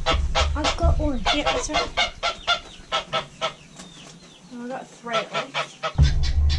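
Geese honking in a quick series of short calls, about three or four a second, quieter for a stretch around the middle; a low rumble comes in near the end.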